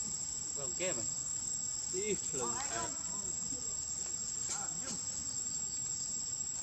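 Steady, high-pitched drone of insects, with a few short, faint vocal sounds over it.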